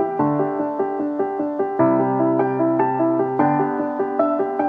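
Background piano music: a quick, even run of notes over held low notes that change every second and a half or so.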